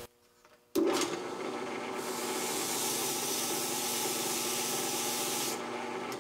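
Drill press spinning a sanding drum, starting abruptly about a second in, with a rubber crepe cleaning pad pressed against the sandpaper sleeve: a steady rubbing hiss over the motor's hum, dropping back near the end as the pad comes away. The pad is clearing clogged dust from the sandpaper.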